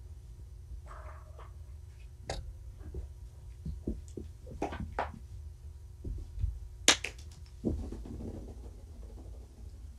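Scattered light knocks and clicks over a steady low hum, with a sharper click about seven seconds in followed by a brief rustle.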